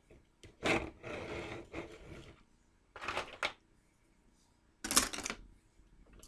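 Plastic Halloween chain links clattering against each other and the tabletop as they are pulled apart and set down, in three short bursts of rattling, the first the longest.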